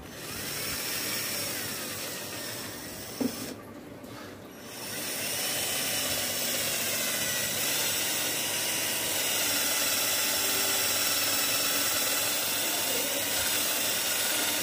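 Small handheld gas torch hissing steadily, with faint wavering whistles in the hiss. It cuts out for about a second some three seconds in, then comes back louder and holds steady.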